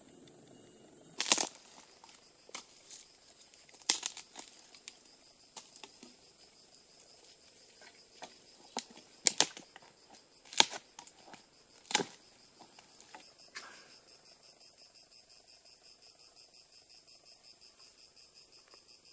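Dry sticks snapping with sharp, single cracks, about six of them over the first twelve seconds, the loudest about a second in. They sound over a steady high-pitched insect drone, joined about thirteen seconds in by a pulsing cricket-like trill.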